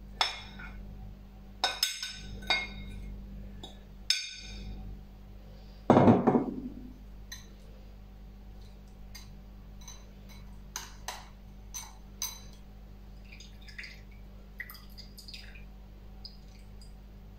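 Metal spoon clinking and scraping against a glass dish and a small metal sieve as grated raw potato is scraped in and pressed to squeeze out its juice. There is a louder knock about six seconds in, then lighter scattered taps and clicks.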